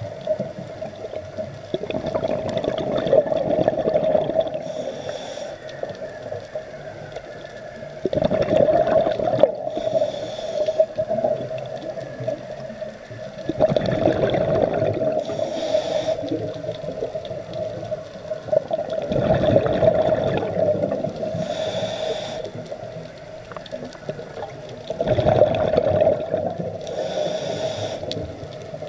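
A scuba diver breathing through a regulator underwater: a rush of exhaled bubbles about every five to six seconds, five breaths in all, each with a short hiss from the regulator, over a steady hum.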